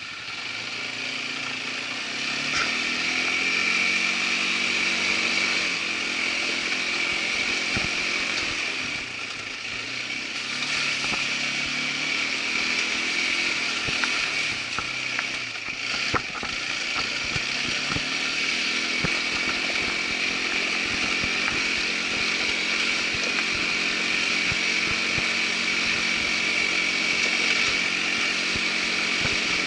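Irbis ATV 200 quad bike's small single-cylinder four-stroke engine running under load while riding, its pitch climbing a couple of seconds in and again about twenty seconds in, easing off around eight to ten seconds and sixteen seconds in. Scattered short knocks and rattles throughout.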